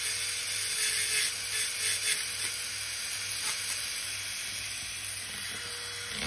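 Dental handpiece running with a steady high hiss as a thin bur bevels the cavity margins of a model upper incisor, a little stronger in the first couple of seconds, over a faint low hum.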